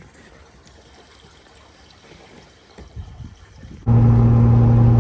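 Faint trickle of gasoline being poured from a can into a pickup's fuel tank. About four seconds in it cuts off abruptly to the loud, steady drone of a vehicle driving, heard from inside the cab.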